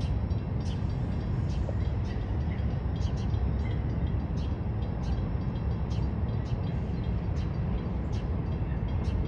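Double-stack container freight train passing at a distance, a steady low rumble with scattered light high clicks.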